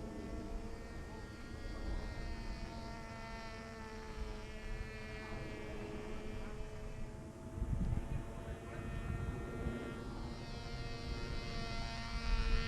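Small RC powered glider's motor and propeller buzzing in flight, a thin drone whose pitch wavers slightly as the plane moves. Wind rumbles on the microphone underneath, gusting about eight seconds in and again near the end.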